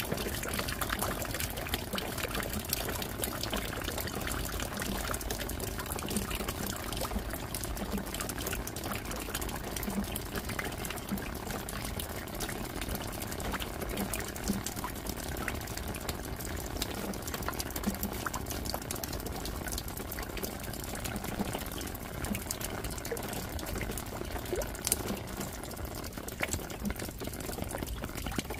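Steady rain falling: a dense patter of drops over a constant rush of water, even throughout.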